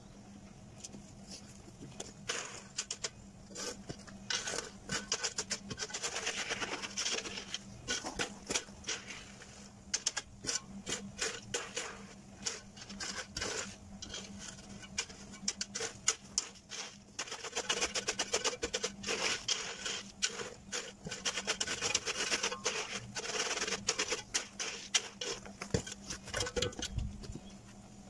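Steel spade scraping and crunching through gravel and crushed stone, with many rapid clicks of stones, in several spells of work with short pauses between.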